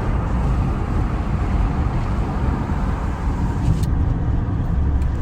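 Steady low rumble of a car on the move: road and wind noise, loud enough to cover speech.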